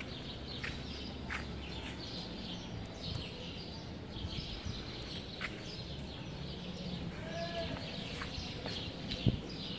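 Small birds chirping over and over in the street trees over a low outdoor background. About seven and a half seconds in comes a short pitched call that rises and falls, and a single knock sounds near the end.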